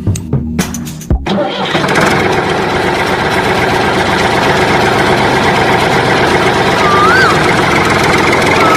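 Music cuts off about a second in and a steady engine-like running noise starts and carries on, with two short wavering whistle-like tones near the end.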